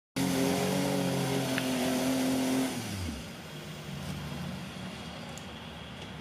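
Off-road 4x4's engine running loud at steady high revs, then the revs drop sharply about three seconds in. It carries on running quieter at low revs.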